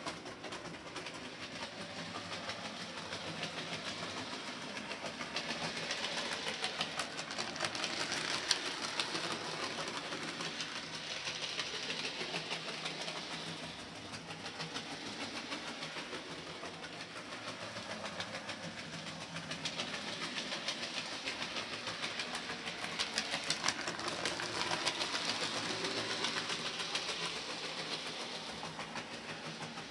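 00 gauge model train, a Percy the Small Engine model hauling Annie and Clarabel coaches, running along the layout's track with a steady rattle and fast fine clicking of its wheels on the rails. It grows louder twice as it passes nearer.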